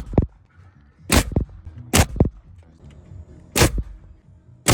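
Nail gun driving nails into wood: five sharp shots at irregular gaps of about a second, each followed quickly by a second, lighter knock.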